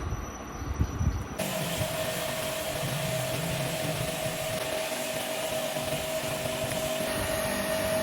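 A few knocks, then a workshop machine starts about a second and a half in and runs steadily with a hiss and a constant whine, stopping near the end.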